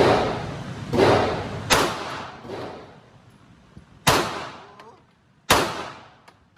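Glock pistol fired five times at an uneven pace: two shots about a second apart, a quick third, then two more spaced over the next few seconds. Each shot cracks sharply and rings off in a long echoing decay.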